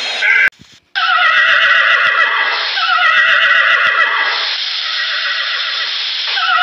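Horses whinnying: several neighs overlap and follow one another from about a second in, each falling in pitch. Before this, a brief different sound cuts off about half a second in.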